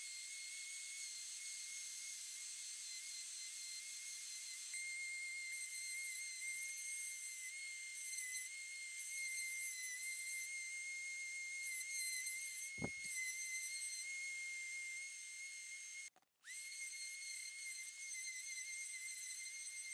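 DeWalt random orbit sander running steadily with a high, even whine as it sands the old wooden saw table, with a brief break about three-quarters of the way through.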